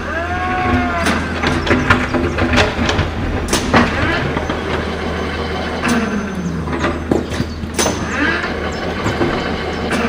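Toy excavator digging sand: a steady low engine-like hum throughout, with scattered clicks and knocks and a few short whines that rise and fall, the first at the very start.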